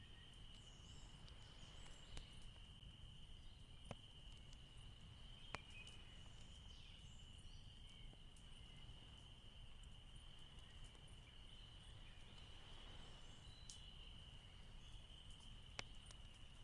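Near silence: a faint, steady high-pitched tone runs through the quiet background, with a few faint clicks.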